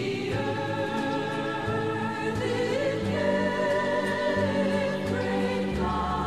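Choral background music: voices singing slow, held chords that change every two or three seconds.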